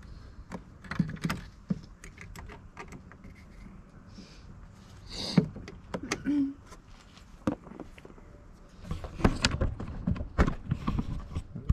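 Hand tools and metal intake parts being handled in a car's engine bay: scattered clicks, knocks and light rattles, with a sharp knock about five seconds in and a busy run of clatter near the end.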